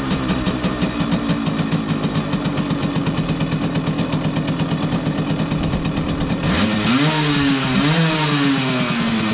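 Simson KR51/2 Schwalbe moped's 50 cc single-cylinder two-stroke engine idling with a steady, rapid pulse, then revved about six and a half seconds in, its pitch rising, dipping, rising again and falling back near the end. It is running with a newly fitted aftermarket air-intake snorkel.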